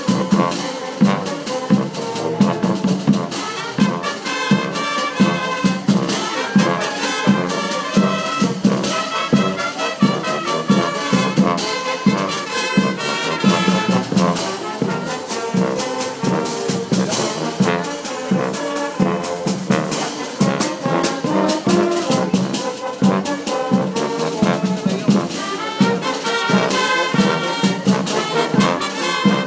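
Brass band music: trumpets and trombones playing a lively tune over a steady beat.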